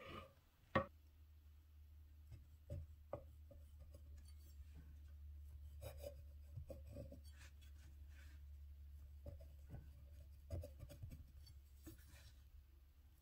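Knife cutting through soft white sandwich bread on a wooden cutting board: faint scratchy sawing strokes and light taps of the blade against the board, with one sharp knock about a second in. A steady low hum sits underneath from about a second in.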